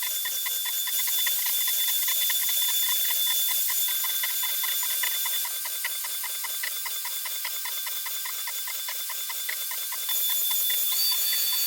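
CNC router cutting wood: a steady high spindle whine with a quick regular ticking, about four a second. Near the end the sound steps up and a second whine rises in pitch and holds.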